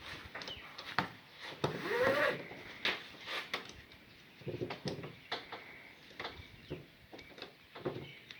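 Ratchet strap being handled: webbing pulled and fed through the slot in the ratchet drum, with scattered metal clicks and knocks from the ratchet mechanism and the strap rubbing and sliding.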